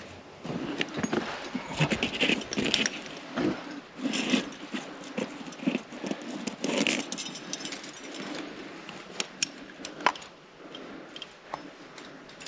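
Metal climbing gear — carabiners and cams racked on a harness — clinking and jangling irregularly as a climber moves up a crack.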